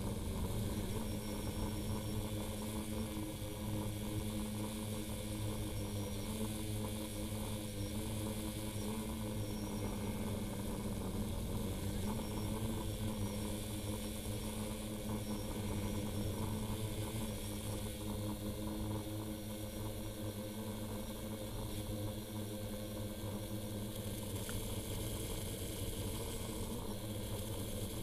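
Small motors of the radio-controlled craft that carries the camera running steadily: a hum with a fixed pitch and a hiss over it.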